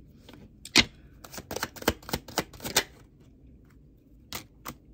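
Deck of tarot cards shuffled by hand: a run of sharp clicks and taps as the cards are slapped together, the loudest just under a second in, then a pause and two more taps near the end.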